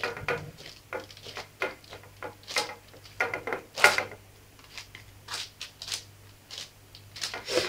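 Hands patting and pressing a disc of soft brioche dough flat on parchment paper in a baking tray: irregular soft pats and paper rustles, with a couple of sharper strokes about two and a half and four seconds in.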